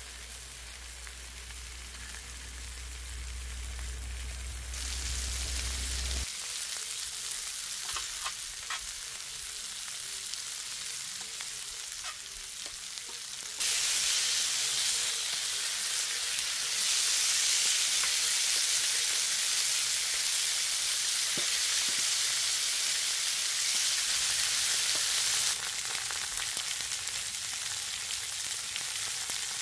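Beef short ribs sizzling on a hot iron griddle plate, a steady fat-spitting hiss. The sizzle gets louder in steps and is loudest from about halfway through until shortly before the end. A low hum sits under it for the first few seconds, and there are a few light clicks.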